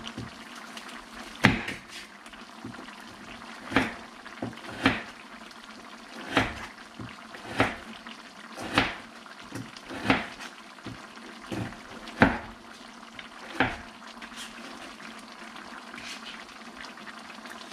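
Kitchen knife slicing green onions on a cutting board: about ten sharp chops, one every second or so, over the steady bubbling of a pan of spicy braised chicken (dakdoritang) simmering.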